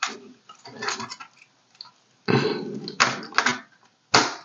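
Several short scrapes and clicks of a plastic A/V cable adapter and its leads being handled and pushed onto the video socket of a bare Commodore 64 circuit board.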